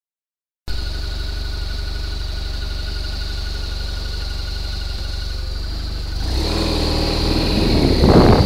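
Motorcycle engine idling steadily, then rising in revs and getting louder as the bike pulls away about six seconds in. Wind rush on the microphone builds near the end.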